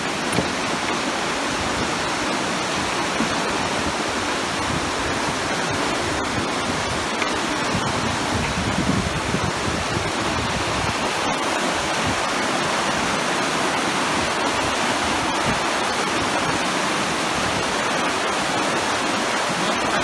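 Fast mountain river rushing over rocks in white-water rapids: a steady, unbroken rush of water.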